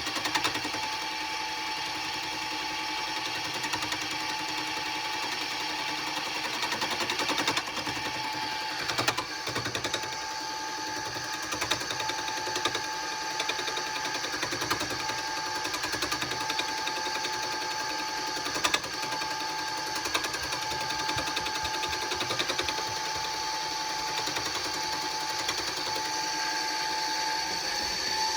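Wood lathe running at speed with a steady motor whine while a turning tool cuts the spinning wood, giving a continuous scraping and occasional sharp knocks.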